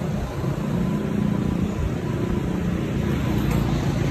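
Street traffic noise: a steady hum of passing vehicle engines.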